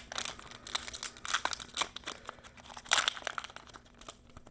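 Foil trading-card booster pack wrapper crinkling in the hand while the cards are handled: irregular crackling with louder crunches near the start, about a second and a half in, and about three seconds in.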